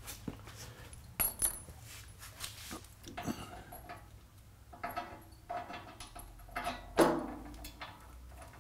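Steel mounting bolts clinking and knocking against the cast-iron lathe pedestal and bed as they are handled and pushed up into place, a scatter of short metal clicks with one louder knock about seven seconds in.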